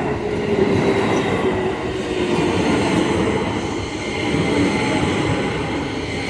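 Keio Line electric train running past a level crossing, a steady loud rush of wheels on rail with a faint hum from the motors.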